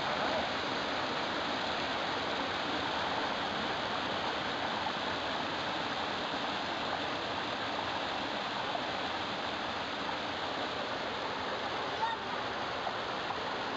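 Mountain stream rushing over rocks in small cascades, a steady, even splashing rush of water.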